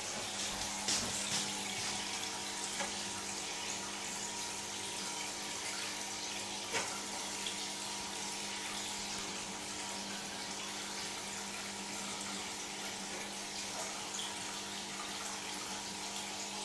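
Home aquarium aeration: a steady hiss of bubbles and running water in the tank, over a constant low electric hum.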